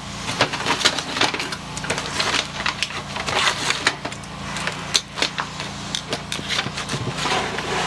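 Irregular clicks, knocks and clatter of tongs and grates on a charcoal smoker as the cooked turkey is taken off, over a steady low hum.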